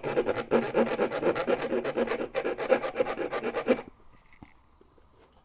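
Hand file rasping in quick short strokes across the edge of a brass part on a sheet-metal model equipment bin, taking off a sharp overhanging edge. The filing stops a little under four seconds in.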